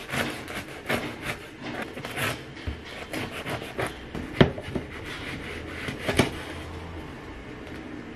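Long knife sawing back and forth through the crisp crust of a freshly baked loaf, a run of short rasping strokes, with two sharp knocks on the wooden cutting board about four and six seconds in; quieter near the end.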